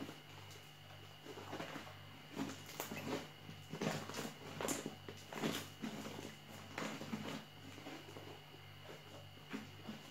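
Fluffy shaving-foam slime being squeezed, folded and stretched by hand, giving irregular sticky squelches and small pops, over a low steady hum.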